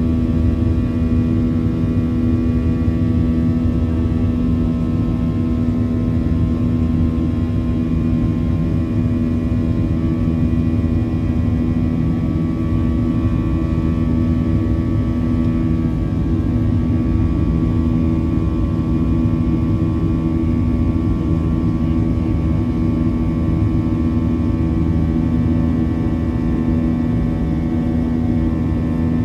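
Boeing 737-800's CFM56-7B jet engines heard from inside the cabin at high thrust: a steady drone with several steady tones layered on it, the buzzsaw of the fan blade tips running faster than sound.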